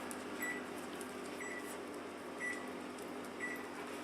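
Short electronic beeps about once a second, over a steady mechanical hum.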